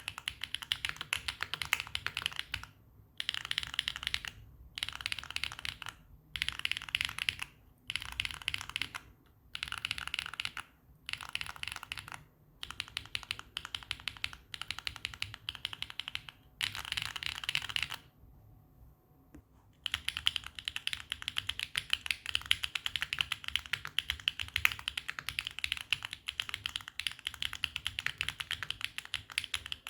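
Clacky mechanical-keyboard typing on HMX Snowfall tactile switches in a Neo80 with an FR4 plate. At first it comes in short bursts with brief pauses, with the case fully foamed. After a pause of about a second and a half, about two-thirds of the way in, continuous fast typing follows with no foam.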